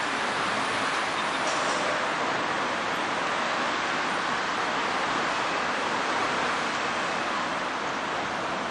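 Steady rushing background noise, even in level, with no distinct events.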